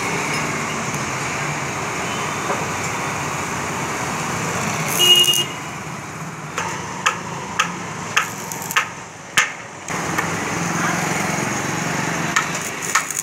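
TIG welding work on a steel railing: a steady hum and hiss, a brief louder burst about five seconds in, then a run of about six sharp taps roughly half a second apart before the steady hum returns.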